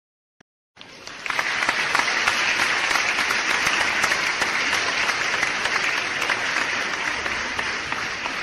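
Applause sound effect: a crowd clapping, starting about a second in, quickly swelling to a steady, dense clatter of claps, and beginning to fade near the end.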